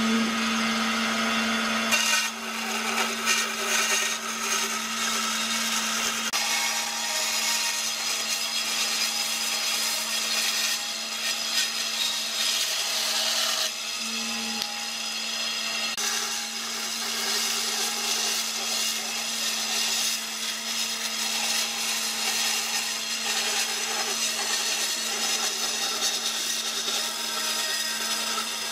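Band saw running with a steady motor hum while its blade cuts curves through a thick softwood board, a rasping hiss that swells and eases as the wood is fed.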